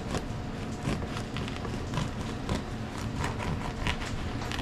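Serrated bread knife sawing through the crisp crust of a baked sourdough loaf on a wooden cutting board: a run of short, rasping back-and-forth strokes.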